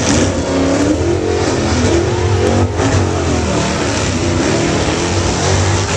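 Drag-racing car engines revving hard and accelerating away from the starting line, rising in pitch, with a brief drop in the sound just under three seconds in.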